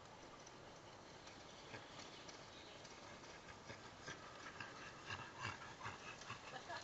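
Dogs running with bicycles on a gravel track, approaching: faint at first and growing louder near the end, with short repeated barks from the dogs.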